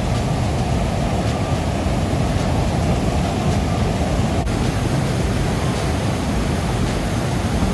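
Steady rushing of white water over the broad, low cascades of the Manavgat River waterfall.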